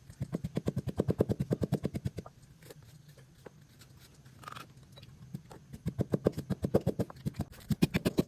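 Rapid, evenly spaced knocks, about ten a second, in two runs: one lasting about two seconds at the start, another starting about halfway through and going on to the end.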